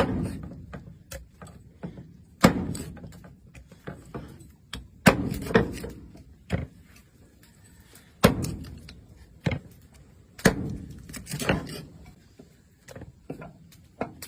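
Irregular series of heavy knocks, about ten, spaced one to three seconds apart, each with a short ringing tail.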